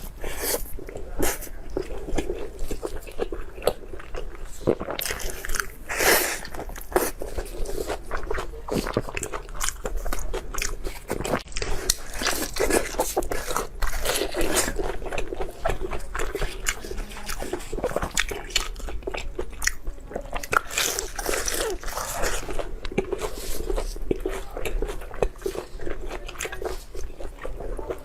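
Close-miked eating: a person biting and chewing food, a dense, uneven run of wet mouth clicks and smacks with no pauses.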